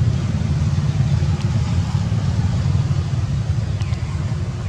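Steady low rumble, with two faint clicks, one about a second and a half in and one near the end.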